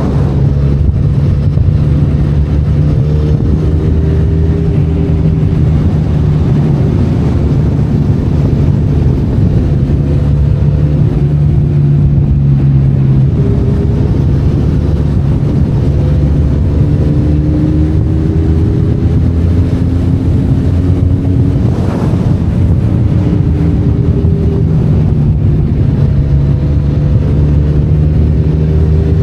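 Benelli Leoncino 500 Trail's parallel-twin engine running under load at fairly steady revs, its pitch drifting slowly up and down. A single sharp knock comes about three-quarters of the way through.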